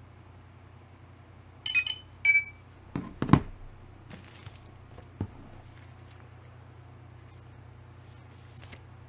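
Handling noise as comic books are moved about on a countertop: a couple of brief high clinks a little under two seconds in, a sharp thump about three seconds in, then a lighter knock and faint rustling of a plastic-bagged comic.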